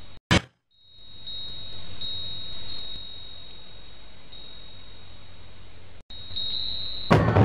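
A steady high-pitched whine over a faint hiss, broken just after the start by a sharp click and half a second of dead silence. A second brief dropout comes about six seconds in, and a short loud crackle near the end.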